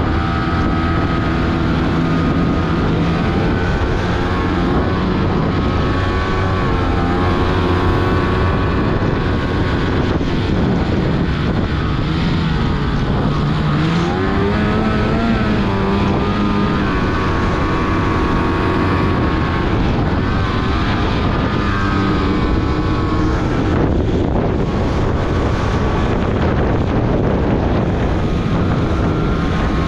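850 cc two-stroke mountain snowmobile engine running, its pitch dropping about twelve seconds in and climbing again a couple of seconds later.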